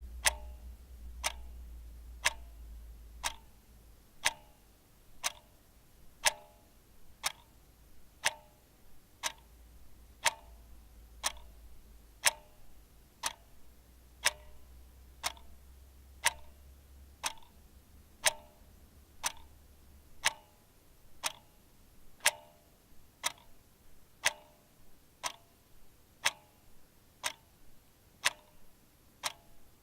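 Clock ticking steadily, about one sharp tick a second, each tick with a short ring.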